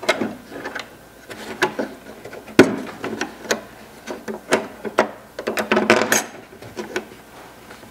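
Small clicks and taps of metal hardware as AN509 screws are set through a steel striker plate into a door's handle pocket, with one sharp knock about two and a half seconds in and a quick run of clicks near six seconds.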